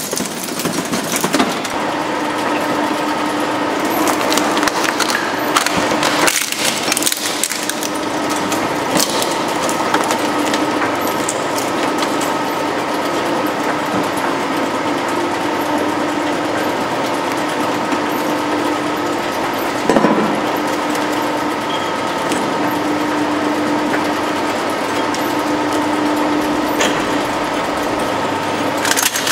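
Twin-shaft shredder running with a steady hum as its steel cutter discs crunch through plastic and stuffed toys, with occasional sharp cracks, the loudest about 20 seconds in.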